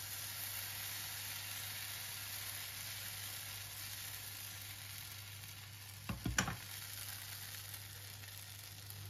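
Potato pancake batter sizzling steadily in a hot pan of lard as it is ladled in, with a short cluster of knocks about six seconds in.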